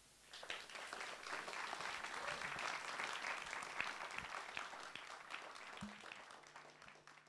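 Audience applauding. The clapping starts about half a second in and dies away near the end.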